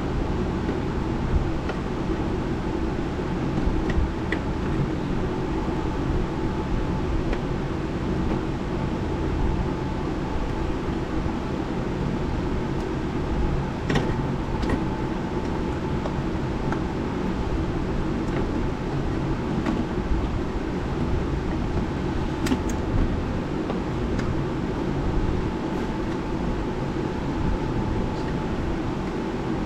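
A steady mechanical hum with an unchanging pitch, with a few light clicks and taps from parts being handled; the sharpest click comes about halfway through.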